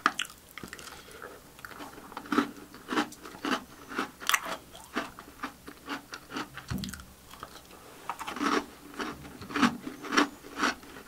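A person chewing an Oreo cookie: a run of crisp crunches roughly every half second, with a short pause a little past the middle.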